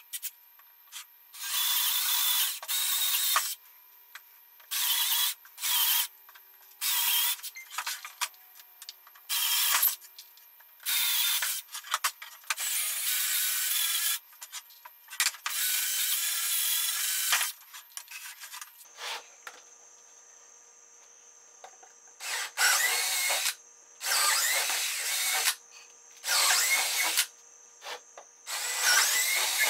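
Cordless drill boring holes in 3/4-inch plywood, in repeated runs of one to two and a half seconds with short pauses between. There is a quiet gap of a few seconds about two-thirds of the way through.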